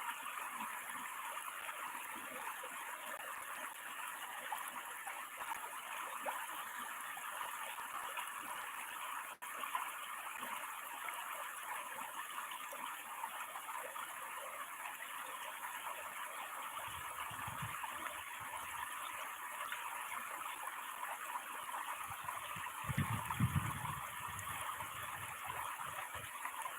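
Water pouring over a small weir, a steady, even rush. Two short low rumbles come in about two-thirds of the way through and again near the end, with a momentary break in the sound about nine seconds in.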